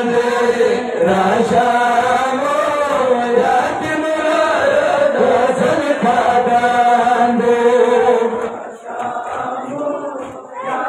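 Men's voices chanting a Pashto noha, a Shia lament, in long held, wailing notes. The chanting drops in level about eight seconds in.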